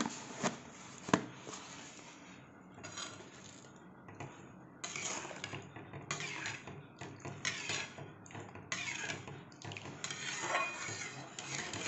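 Spatula stirring and scraping semolina pudding cooking in milk in a metal kadai, in repeated strokes from about five seconds in, with a few sharp metal clinks near the start.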